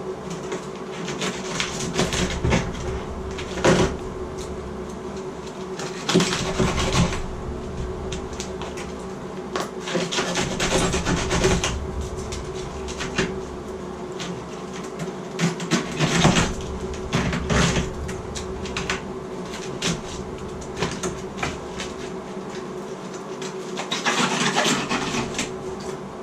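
Irregular knocks, scrapes and clatter of tile and cement backer board being broken out of a shower wall by hand, over a steady hum.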